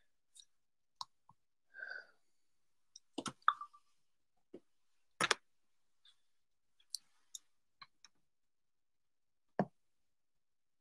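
Scattered small clicks and knocks in a quiet small room, a dozen or so spread over several seconds, the sharpest about three and five seconds in. A low thump near the end as the recording device is reached for and handled.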